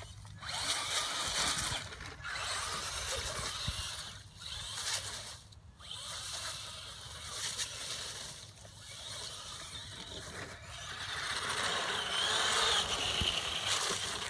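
Traxxas Slash RC truck's electric motor and drivetrain whining as it drives across grass, swelling and dropping away with bursts of throttle.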